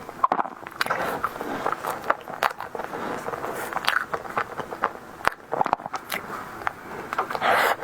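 Close-miked eating sounds of someone chewing a tiger skin dessert: wet chewing with repeated small mouth clicks and smacks, and a louder smacking rustle near the end.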